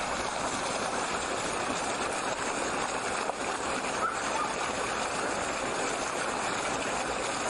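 Steady, even rushing noise with no voices and no clear tone.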